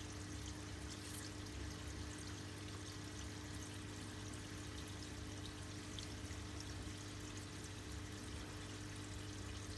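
Water pouring and trickling steadily inside a Deltech Twintech calcium reactor as it refills, over a steady low pump hum.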